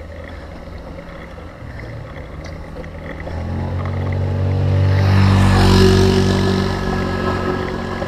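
A motor vehicle's engine passing close to a cyclist on a mountain road, growing louder to a peak about six seconds in and then fading, over a steady low rumble of wind and road noise.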